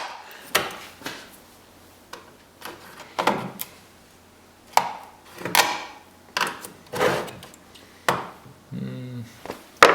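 Scattered clicks, knocks and short scrapes of a plastic door lock actuator housing being handled by hand, with no power tool running.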